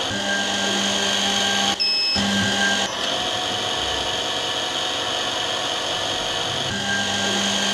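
Drill spindle motor of a Canton CT5412 eyeglass-lens drilling machine running steadily while it works through the lens holes. A short electronic beep sounds about two seconds in.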